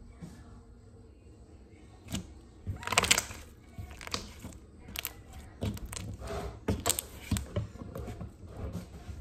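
Clear slime being stretched, folded and squeezed by hand, giving irregular sticky clicks and pops that start about two seconds in, the loudest crackle about three seconds in.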